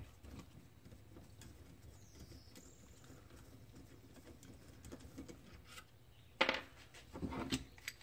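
Faint small clicks of a Torx bit working a screw out of a 7.3 Powerstroke injector's solenoid, then near the end two louder metallic clatters as the injector and its parts are handled on the workbench.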